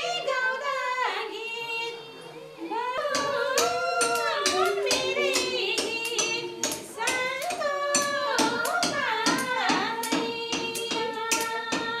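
A woman's voice singing a wavering, gliding melody, with sharp taps and knocks throughout that come more often near the end.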